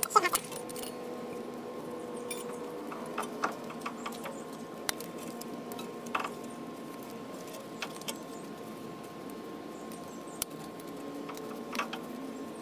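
Metal brake pad clips being pried off a rear brake caliper bracket by gloved hands: scattered light metallic clicks and scrapes, the loudest right at the start.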